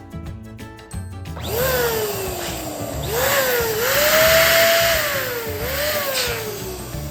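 Air escaping through a balloon's stretched neck. It makes a long squeal that slides down and back up in pitch several times, with a rush of air, loudest near the middle. Background music plays under it.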